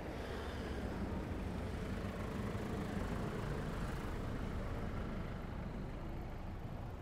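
Road traffic: a motor vehicle's engine and tyres running close by, rising at the start and easing off in the second half.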